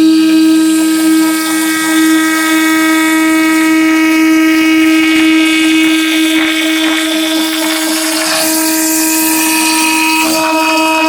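Spindle of a homemade CNC router running with a steady whine while a 5 mm wood end mill cuts solid wood, the cutting noise swelling and easing as the tool moves.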